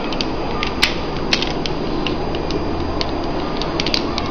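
Hard plastic parts of a Bandai Magiking combining-robot toy clicking and knocking as they are slotted together and locked in place by hand: a scattering of sharp little clicks over a steady hiss.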